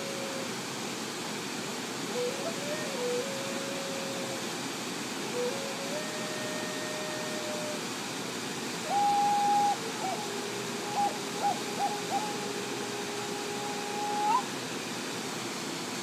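Native American flute tuned in G# playing a slow melody of long held notes with gaps between them, over the steady noise of a waterfall. From about nine seconds in the notes are higher and louder, broken by quick flutters, and the phrase ends with an upward flick near the end.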